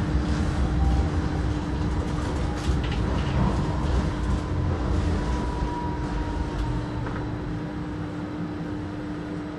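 Wegmann tramcar running, heard from inside the driver's cab: a steady low rumble of wheels on rail with a constant hum and a faint high whine about halfway through. It grows gradually quieter toward the end.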